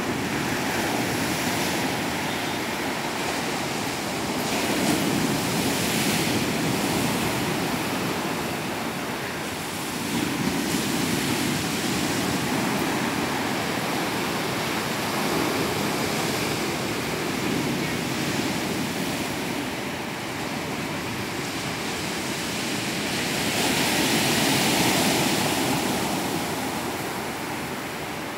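Heavy surf on a rough sea breaking and washing up the beach: a continuous rush of white water that swells as each wave crashes, with the biggest surge about 24 seconds in.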